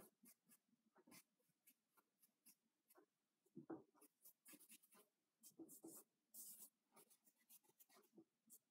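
Stick of charcoal scratching on drawing paper in faint, irregular short strokes, a few of them longer, as small adjustments are worked into a portrait.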